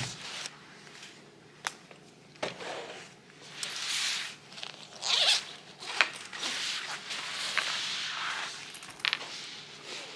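Backpack zipper being pulled open in a few long swishes, with the nylon bag rustling and a few sharp knocks as things are set down on a table.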